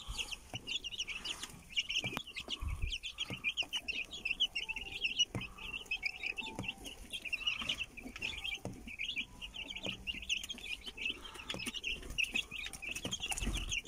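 A brood of young chicks peeping continuously in quick short chirps, with their mother hen clucking softly among them and a few light taps.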